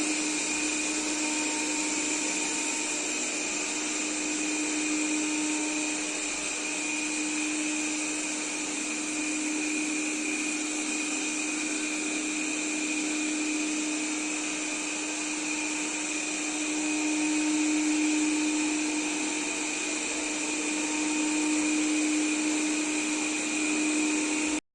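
Robot vacuum cleaner running steadily: an even motor whir with a low hum and a high whine, swelling a little louder twice in the second half and cutting off suddenly at the end.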